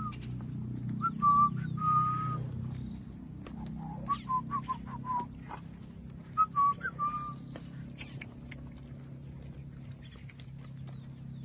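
Someone whistling short runs of clear notes, in three bursts in the first seven seconds or so, over a steady low hum and scattered light clicks.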